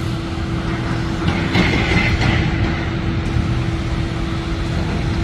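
Steady engine drone with a low rumble and a constant hum. A brief harsher, scraping noise rises over it about one and a half seconds in.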